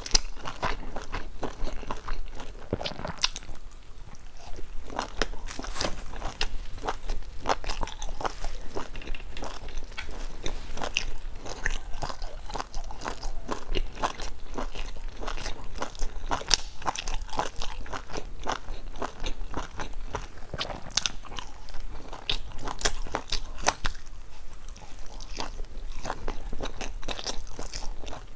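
Close-miked eating: biting and chewing grilled sausages and mushrooms off wooden skewers, a continuous run of quick crunchy clicks.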